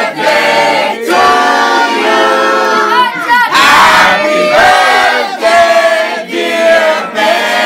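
A crowd of people singing together loudly, holding drawn-out notes with some shouting mixed in.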